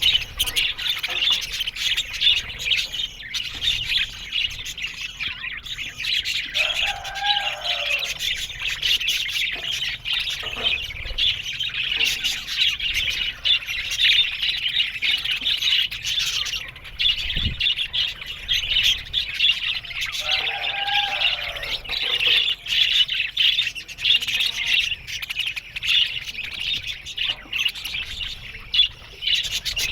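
A flock of budgerigars chattering and warbling continuously, a dense high twittering. Two lower, arching calls stand out about seven and twenty seconds in.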